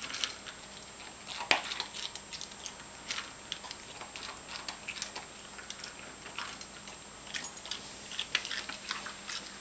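Dog eating dry kibble from a stainless steel bowl: a run of irregular crunches and clicks as it chews and nudges the food. The loudest crunch comes about a second and a half in.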